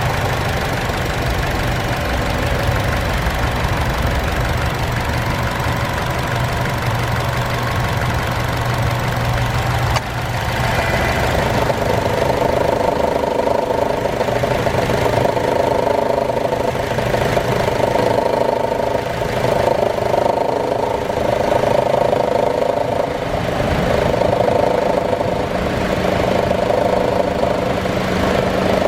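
2014 Chevy Cruze engine idling; about ten seconds in there is a click, and a louder growl joins the engine sound and stays. The owner hears this growl when the A/C comes on and places it right under the exhaust manifold; a new A/C compressor has not cured it.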